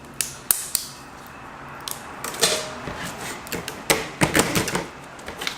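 Small plastic laptop parts being handled: three sharp clicks near the start, then a scatter of clicks, knocks and short scrapes in the second half.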